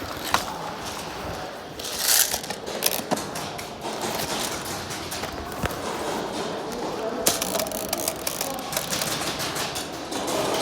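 Airsoft guns firing: scattered sharp mechanical clicks and short bursts, the loudest burst about two seconds in and another about seven seconds in.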